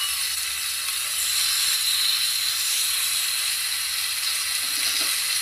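Prawns frying in hot butter with garlic, onion and pepper masala in a frying pan: a steady sizzling hiss.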